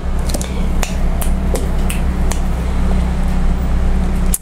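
A string of light, sharp clicks and taps, spaced irregularly, over a steady low hum.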